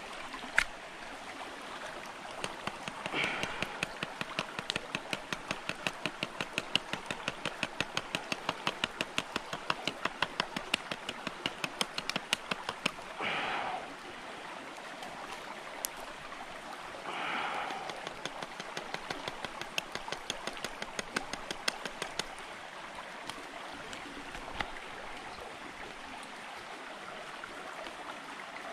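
Shallow stream running, with a long series of sharp, evenly spaced clicks, about three a second, from about three seconds in until about twenty-two seconds, and three short noisy sounds among them.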